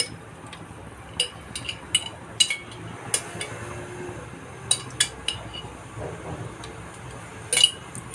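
A spoon clinking and scraping against a plastic ghee jar and the rim of an aluminium pressure cooker as ghee is spooned into the hot oil: a scattering of sharp, separate clinks, the loudest near the end.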